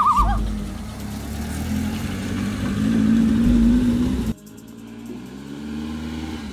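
Suzuki mini box truck's engine running as it drives, its pitch rising steadily as it accelerates. About four seconds in it drops away suddenly to a quieter, steadier engine drone. A brief warbling whistle sounds right at the start.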